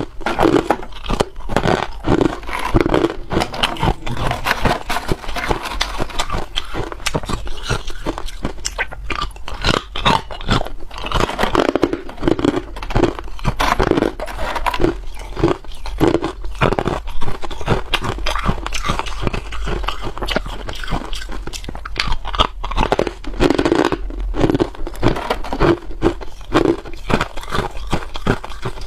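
Hard clear ice being bitten and chewed close to the microphone: continuous crunching and cracking made of many sharp, quick crunches.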